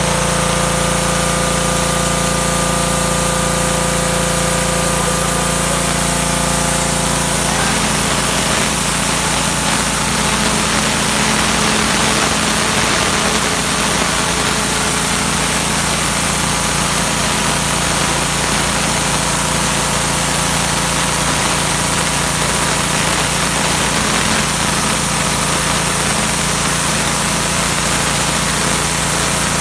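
Troy-Bilt 3100 psi gas pressure washer running steadily, its engine hum under the hiss of the high-pressure water jet stripping paint; the spray hiss grows fuller about seven seconds in.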